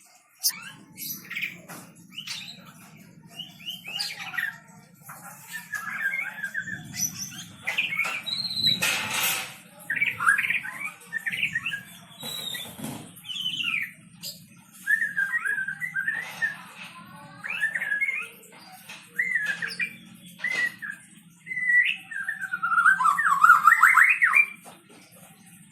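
A white-rumped shama (murai batu) in full song, a rapid string of short, varied whistled and squawky phrases with a loud trilling run near the end. A brief noise burst comes about nine seconds in.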